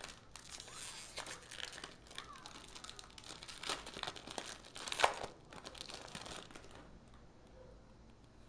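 Foil wrapper of a Yu-Gi-Oh booster pack being torn open and crinkled by hand, in a run of sharp crackles with the loudest about five seconds in, dying away near the end.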